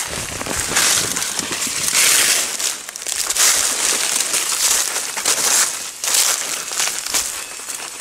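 Dry leaf litter and broad leaves crunching and rustling as someone pushes through jungle undergrowth, swelling in bursts about once a second like steps.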